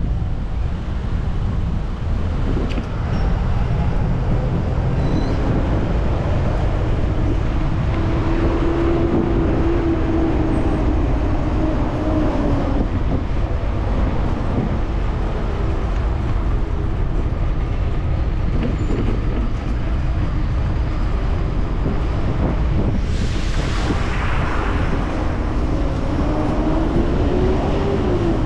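Wind rushing over the microphone of a moving bicycle, with motor traffic on the road alongside: engine hum rising and falling as vehicles go by. One vehicle passes close and loud about four-fifths of the way through.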